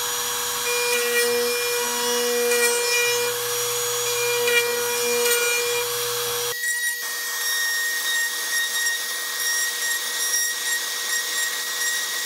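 StepCraft D600 CNC's spindle running a router bit around holes in MDF, trimming off the holding tabs: a steady whine over the hiss of the cut. The sound shifts abruptly about six and a half seconds in, and the whine and cutting go on.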